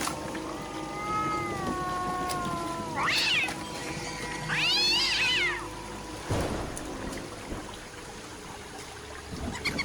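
An animal calling: a long wavering call that slowly falls in pitch, then two short cries that rise and fall, about a second and a half apart. A dull knock follows.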